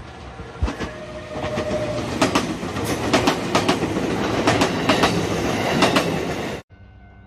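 Nagano Electric Railway express train passing close by, its wheels clattering over rail joints in a run of sharp clicks, growing louder over the first two seconds. The sound cuts off abruptly near the end, leaving a much quieter faint steady hum.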